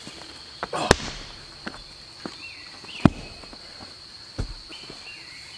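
Heavy thuds of sawn log rounds being set down on the forest floor: one about a second in, the loudest at about three seconds, and a lighter one near four and a half seconds, among footsteps on leaves and stones. A steady high-pitched insect drone runs underneath.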